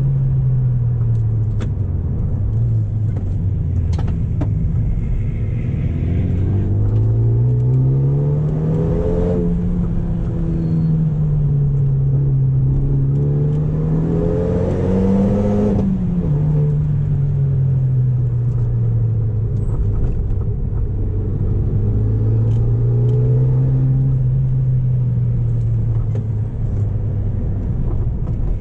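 Renault Megane RS turbocharged four-cylinder engine through an Akrapovic exhaust on the road, its note climbing twice under acceleration to a louder peak and falling away sharply after each, then steady cruising with gentle rises and falls in pitch.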